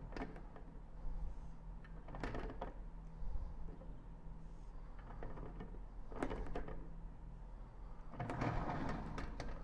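Marker and straightedge working on a whiteboard: a few short scraping strokes as lines are drawn, with a longer one near the end, over a steady low hum.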